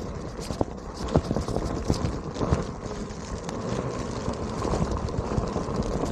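Onewheel electric board riding over rocks, with a steady rushing noise and irregular sharp clicks and knocks as rocks are kicked up by the wheel.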